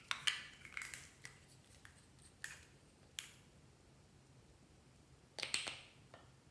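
Small plastic bottle handled and uncapped by hand: sharp plastic clicks and crackles in the first second, a couple of single clicks, then a denser crackly burst about five and a half seconds in as the open bottle is tipped.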